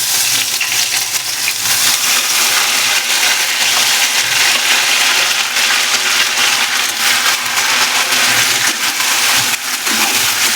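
Freshly ground turmeric paste hitting hot ghee in a kadhai: a loud, steady sizzle with fine crackling that starts abruptly as the wet paste goes in.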